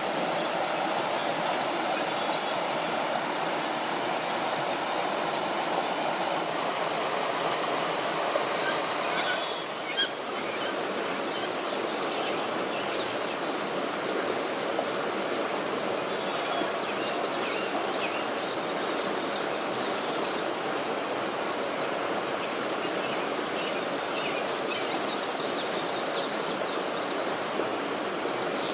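Steady rush of a flowing stream, with faint high chirps over it. A brief dip and a click about ten seconds in.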